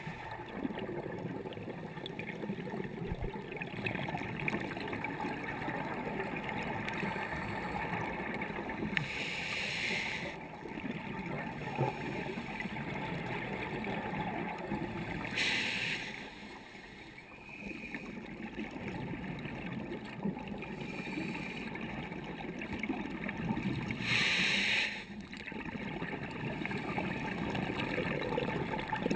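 Underwater recording: a steady muffled hiss, broken three times, several seconds apart, by a short rush of exhaled bubbles from a scuba diver's regulator.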